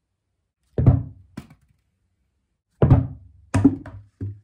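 A tennis ball landing in a plastic basket and then a plastic bucket, each held in a batting glove: four hollow thunks, a second or so apart.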